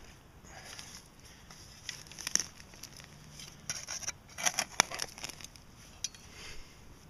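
A small metal digging spade cutting and scraping into soil, dirt crunching and crackling as it gives way, in two bouts of digging with one sharp click during the second.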